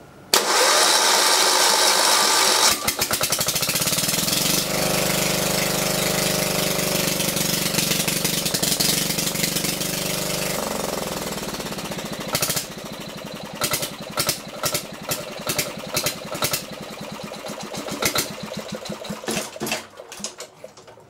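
Nigata NGT5 diesel generator's engine cranked by its electric starter; it catches after about two seconds and runs steadily at high speed. About ten seconds in its note drops, then it chugs unevenly with separate knocks and dies away near the end: it no longer holds its low idle speed.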